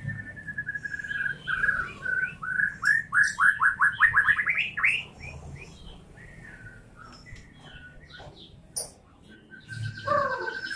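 White-rumped shama (murai batu) singing. It opens with a held trilling phrase, then gives a loud, fast run of falling whistled notes about three to five seconds in. Quieter, varied notes follow, and another trill comes near the end.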